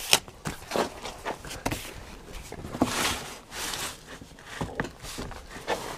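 Light handling noises: scattered small knocks and brief scrapes and rustles of hands on cardboard while working under a car, with a slightly longer scrape about three seconds in.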